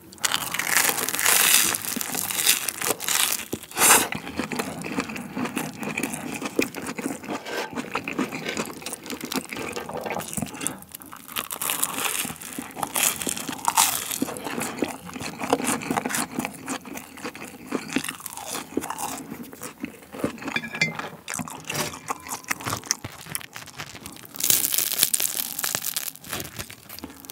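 Close-miked crunchy biting and chewing of toasted bread with sausage and spicy stir-fried ramen. For the last few seconds it is louder, as the crisp toast crust is torn apart by hand.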